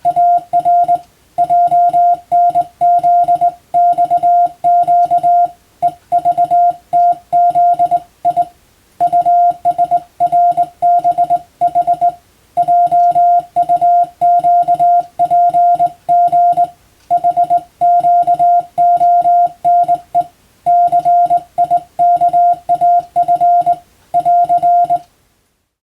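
Morse code (CW) beep tone keyed on and off in quick dots and dashes, sent in groups with short pauses between them, as practice for the radiotelegraph operator's code-sending exam. It stops near the end.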